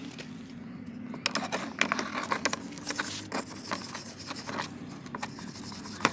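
Small wire brush scrubbing the rusty steel blades of a pair of scissors in a tub of soaking liquid, with metal clinks among the scratchy strokes. The strokes are irregular and start about a second in.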